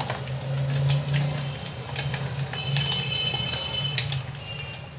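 Metal spoon stirring a thick yogurt-and-spice marinade in a plastic bowl, scraping and clicking against the bowl's sides many times in quick succession, over a steady low hum.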